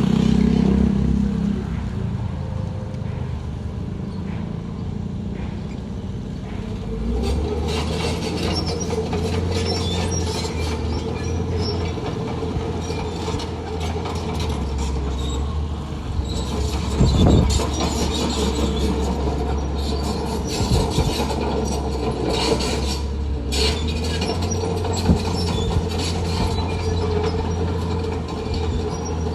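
Diesel engine of heavy earthmoving machinery running under load, with repeated metallic squeaks and clanks. The engine note grows louder about seven seconds in.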